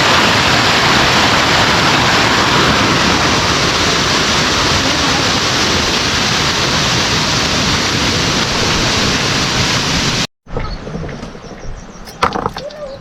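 A loud, steady rushing noise, like water or wind, cuts off abruptly about ten seconds in. Quieter scattered clicks and knocks follow.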